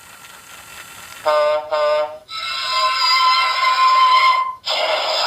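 A Fisher-Price Talking Diesel toy engine's electronic speaker playing its sound effects. About a second in, a double horn honk sounds, then a held synthesised tune-like tone, and near the end a short burst of hiss.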